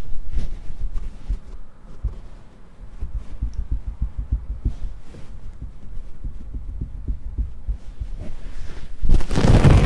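Low, irregular rumbling and buffeting of wind on the microphone, with a stronger gust near the end.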